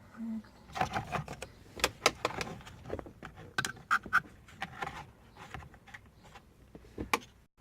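Irregular clicks, knocks and small metallic clinks of hands working loose parts at a car's steering column, a few clinks ringing briefly near the middle.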